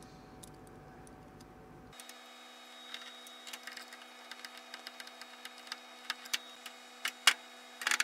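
Light scattered clicks and taps of a jumper wire and fingers working at the plastic terminals of a phase-monitoring relay in a control panel, coming more often after a few seconds, with a few sharper clicks near the end.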